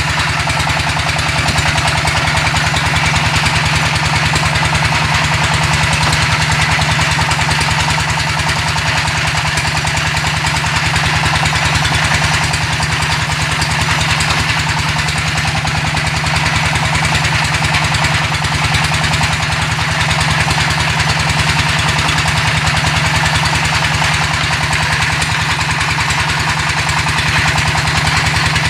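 Brick-making machine running steadily: a continuous fast mechanical rattle over a low hum, unchanging throughout.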